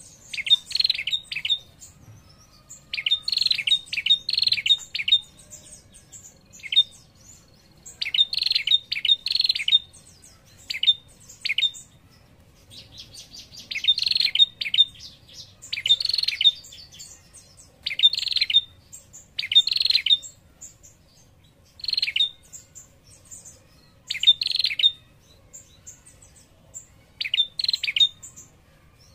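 Female prenjak calling in rapid, chattering trills of sharp high notes, in short bursts repeated every couple of seconds. It is the female's call, used to draw male prenjak to answer.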